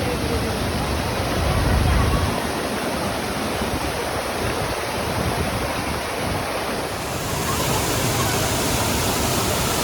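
Waterfall's water falling in a steady, dense rushing noise, with a brief low rumble about a second and a half in.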